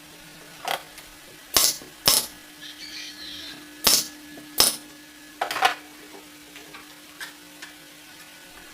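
Irregular sharp knocks and taps of hand work on wood, about six strikes in the first five or six seconds, over a faint steady hum.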